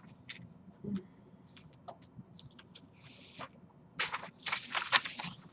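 Pages of a book being handled and turned, a dry paper rustle that starts about four seconds in after a few faint clicks and small rustles.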